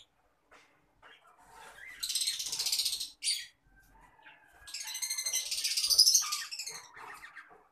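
Fischer's lovebirds calling: bursts of high-pitched, rapid chattering, one about two seconds in and a longer one in the middle, with softer calls near the end.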